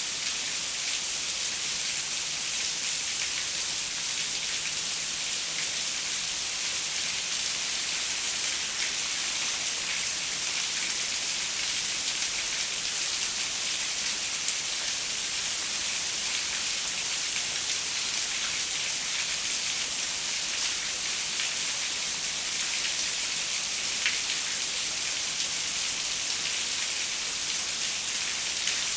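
Steady rain pattering on a window, an even hiss with scattered individual drop ticks.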